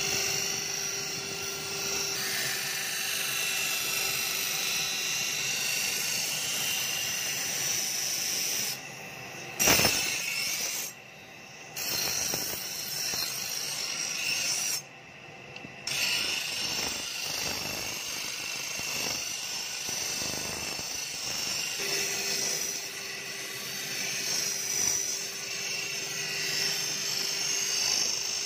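Steel sickle blade being ground on a belt-driven abrasive grinding wheel: a steady rasping hiss of metal on the stone over the hum of the running wheel. It drops out briefly three times in the first half, with a sharp knock just before the first break.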